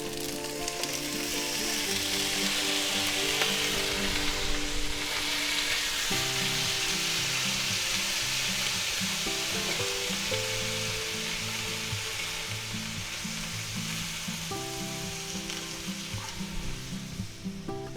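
Raw shrimp sizzling as they fry in hot oil in a cast iron skillet. The sizzle is loudest a few seconds in, then settles to a steady hiss. Background music plays underneath.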